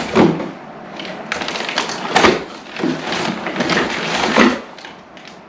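Cardboard and packaging rustling and knocking in several irregular bursts as boxed mounting hardware (bolts and nuts) is handled and rummaged through inside a cardboard box.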